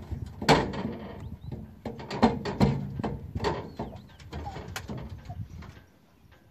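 A series of short, loud animal calls, bunched in the first few seconds and thinning out, stopping abruptly about six seconds in.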